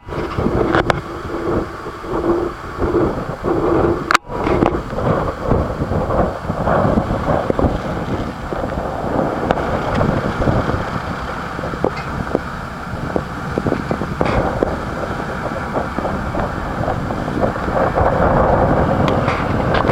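Wind buffeting the microphone aboard a passenger motor ship under way at sea, a gusty rushing noise with a brief dropout about four seconds in.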